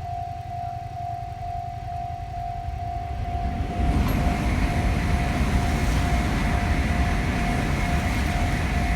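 Japanese level-crossing warning bell ringing, one steady tone repeating in quick, even pulses. From about three and a half seconds in, a loud rumbling noise swells up under it, with a knock at about four seconds.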